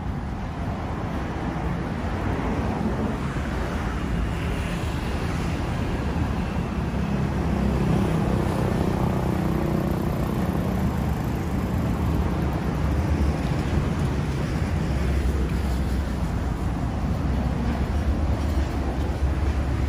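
City road traffic: a steady hum of cars passing on a multi-lane street, growing louder as vehicles go by about eight seconds in and again over the last few seconds.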